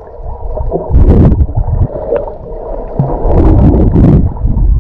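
Muffled water sounds from a GoPro used while snorkelling: gurgling and sloshing with loud surges about a second in and again near the end.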